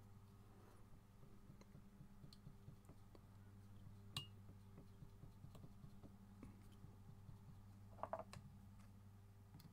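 Near silence: a steady low hum with faint clicks of handling as tying thread is wrapped onto a wire fly shank in a vise, one sharper click about four seconds in and a few more about eight seconds in.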